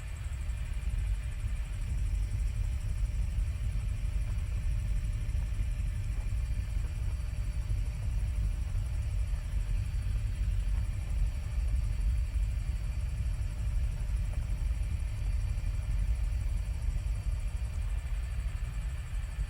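Helicopter in flight heard from inside the cabin: a steady, loud low rumble with faint, steady whining tones above it.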